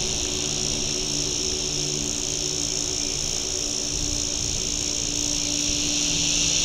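Steady, high-pitched drone of an insect chorus in the bush, unbroken throughout, with a faint low hum beneath.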